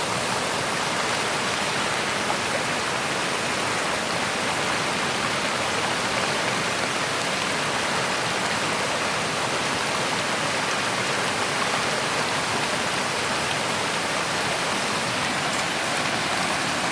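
Floodwater rushing down a road that has turned into a river: a steady, unbroken roar of running water.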